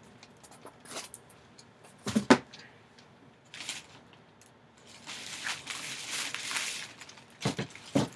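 Nylon drawstring bag rustling as it is handled and moved, with a few sharp knocks: two about two seconds in and two more near the end. A longer stretch of rustling fills the second half.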